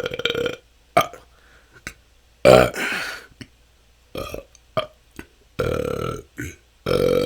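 A person's natural, unforced belches in quick succession, about ten of varying length. The loudest and longest comes about two and a half seconds in, short ones are scattered between, and two longer ones come near the end. The belching comes from gas the person says has been stored up over a long struggle with it.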